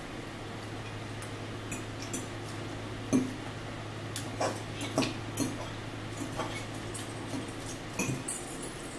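Metal forks clinking and scraping against bowls of spaghetti while eating, a scatter of short clinks with the loudest about three seconds in. A steady low hum runs underneath and stops near the end.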